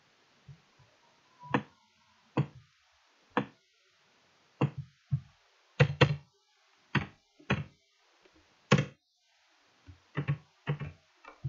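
Keystrokes on a computer keyboard: about fifteen separate taps at an uneven pace, each a low thud with a click on top.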